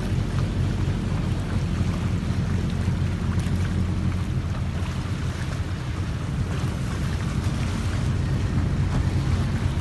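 Boat engine running with a steady low rumble, under a constant hiss of rain and wind.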